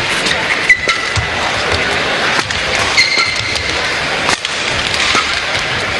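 Badminton rally: several sharp racket hits on the shuttlecock and short high squeaks of shoes on the court, over a steady hum of arena crowd noise.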